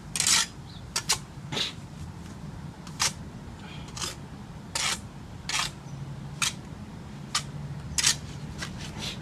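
Bricklayer's steel trowel tapping and scraping on a brick and its mortar bed: about a dozen short, sharp clicks and brief scrapes at irregular intervals, as the brick is set and the mortar worked.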